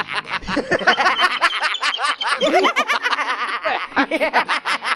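Orange and Pear cartoon characters laughing in high-pitched voices: a fast, unbroken string of short 'ha ha' syllables, several a second, bobbing up and down in pitch.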